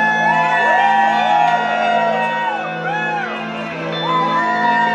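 Concert crowd cheering, shouting and whooping over a steady low droning intro track, with many voices rising and falling on top of one another in a large hall.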